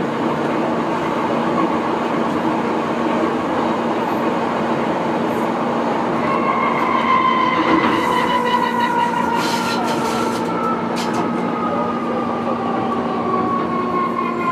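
MTR M-Train (Kwun Tong line) electric metro train running, heard from the cab: steady rumble and wheel noise with a low hum. About six seconds in a motor whine comes up and slowly falls in pitch, the train slowing, with a few brief squeaks a few seconds later.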